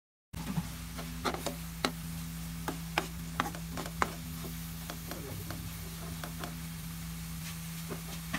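Metal spoon scraping and clicking against an aluminium pan while stirring frying onion-tomato masala, with a faint sizzle and a steady low hum underneath. The clicks come mostly in the first half and thin out afterwards.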